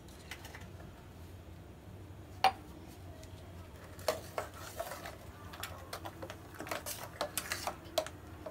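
Kitchen utensils clinking and scraping against a stainless-steel pot: one sharp clink about two and a half seconds in, then a run of quick metal clinks and scrapes through the second half.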